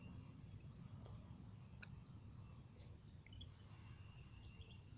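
Near silence: faint outdoor ambience with a low rumble and a steady high hiss, a few faint short high chirps, and one sharp click a little under two seconds in.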